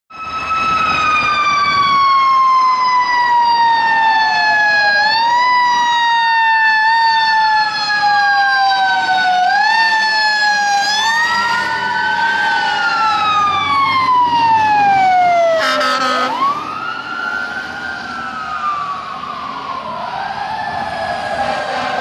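Fire truck sirens responding. One siren slides slowly down in pitch and is nudged back up several times, while a second wail rises and falls over it. A short horn blast sounds about two-thirds of the way through.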